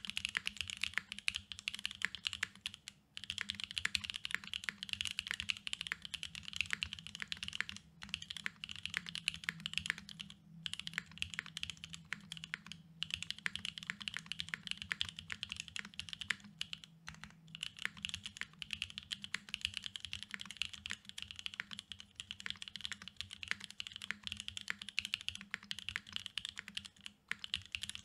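Fast typing on a Singa Kohaku R2 custom mechanical keyboard with an aluminium plate, lubed NovelKeys Whipped Cream linear switches and GMK keycaps: a steady stream of keystroke clacks, broken by a few brief pauses.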